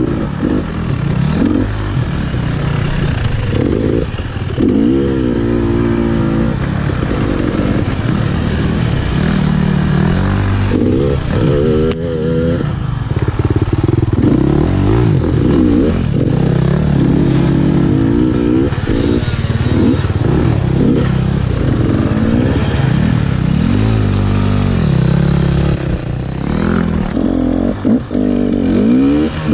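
Trail motorbike engine revving up and easing off over and over, its pitch rising in repeated sweeps, over a steady rushing noise.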